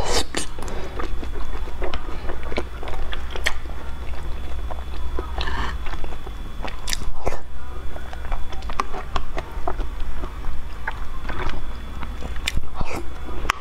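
Close-miked eating: a person biting and chewing soft white balls in a sticky, stringy starch gel, with many small wet mouth clicks and smacks and a few louder slurping bursts. A steady low hum runs underneath.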